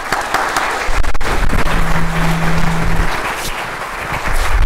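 Audience applauding: a dense, steady run of clapping.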